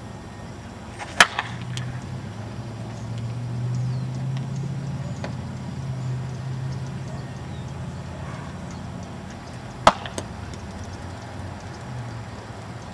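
Two sharp cracks of a prototype slowpitch softball bat hitting pitched softballs, about nine seconds apart, each followed by a fainter click. A low steady rumble runs underneath.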